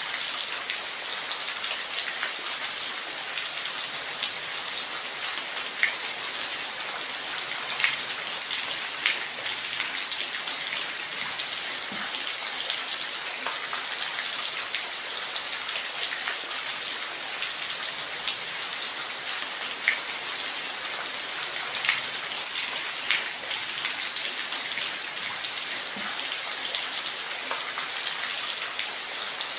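Steady rain falling on a surface: an even hiss with the crisp taps of single drops scattered through it, a few of them louder.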